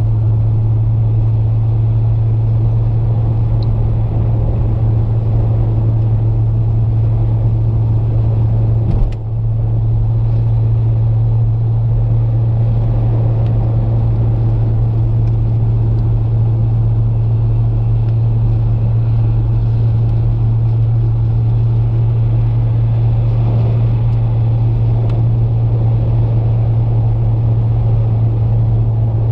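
A 2008 BMW 335i with the N54 engine driving at a steady speed in the snow: a constant low drone of engine and road noise with no revving. There is a single sharp click about nine seconds in.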